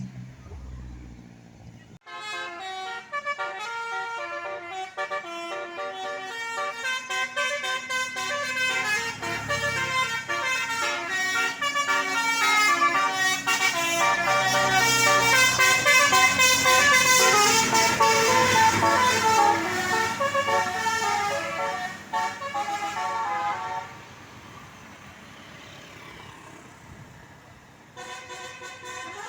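Bus telolet horn: a multi-tone musical air horn playing a melody, with notes and chords changing every fraction of a second. It starts suddenly about two seconds in, grows louder toward the middle and stops a few seconds before the end; another horn tune begins just before the end.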